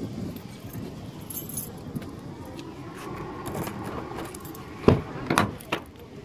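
Light metallic jingling of small metal objects over a low background rumble, followed near the end by three sharp knocks in quick succession.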